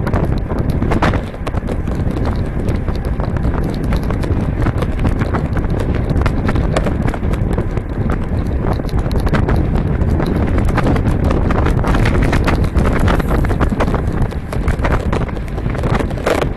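Wind buffeting the microphone of a bike-mounted action camera at riding speed, with dense irregular clicking and rattling from the bike and mount over the road surface.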